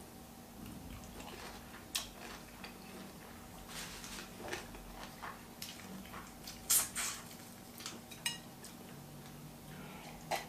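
Boiled crayfish shells being cracked and peeled by hand over a plate, with scattered sharp clicks and light clinks on the plate, the loudest cluster about two-thirds through.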